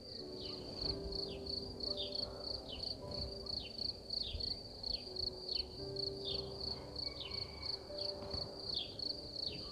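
Honeybees buzzing around an opened hive, their hum wavering in pitch as they fly close by, over the steady pulsed chirping of a cricket in the grass. A short falling chirp repeats about twice a second throughout.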